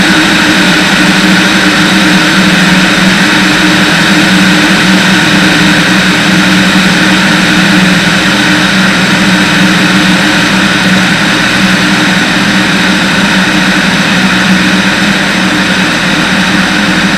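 Van's RV-10 piston engine and propeller droning steadily in cruise, with heavy wind noise rushing over a wing-mounted camera.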